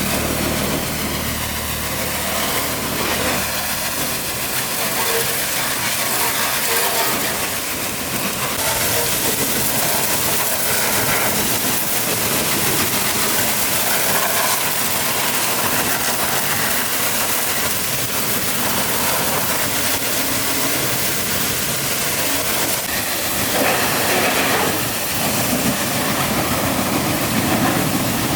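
Loud, steady hissing rush of noise.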